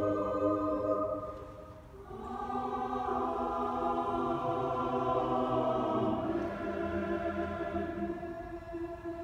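Mixed SATB church choir singing slow, sustained 'Amen' chords. One chord fades out just before two seconds in, a new chord swells in and holds, and the harmony shifts again around six seconds.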